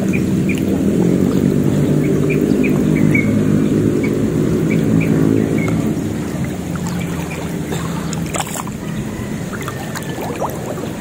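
A motor engine hums steadily, then fades over the second half. Short high chirps repeat over it.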